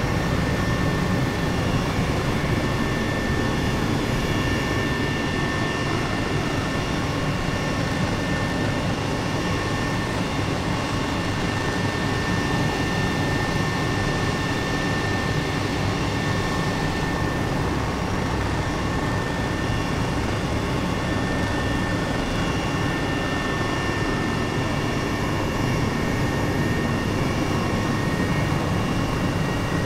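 Helicopter in flight, its engine and rotor noise steady, with a high whine held over it.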